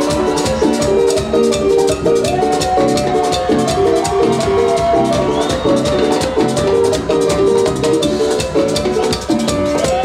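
Live band music with a steady fast beat: short repeated chords over busy shaker-like percussion, and a long held melody note coming in about two seconds in.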